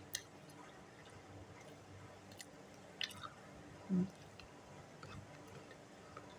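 Close-up mouth sounds of chewing pempek, the soft, chewy Palembang fish cake, with a few small wet clicks and smacks. A brief, louder low sound comes about four seconds in.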